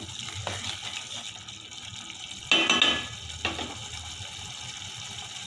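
Thick tomato mixture bubbling and simmering in an aluminium pot, with a spatula stirring and scraping it. There is a louder knock with a metallic ring about two and a half seconds in, as the spatula strikes the pot.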